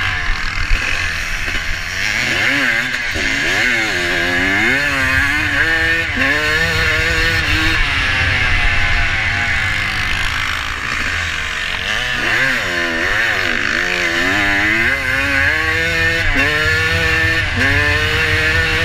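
Vintage motocross bike's engine under hard throttle, heard from on board: the revs climb in repeated steps as it shifts up through the gears, ease off about halfway through as the rider backs off for a turn, then pull up through the gears again, over a steady rushing noise.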